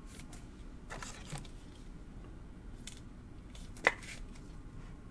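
Faint handling noise of a trading card in a clear plastic sleeve: a few soft scrapes and rustles, and one sharp click a little under four seconds in.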